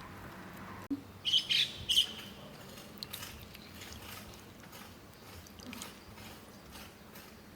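A bird calling: a quick run of three or four loud, high chirps about a second in, then a faint outdoor background with a few small clicks.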